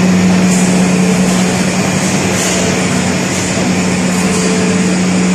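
Olive oil mill machinery running with a loud, steady noise and a constant low hum.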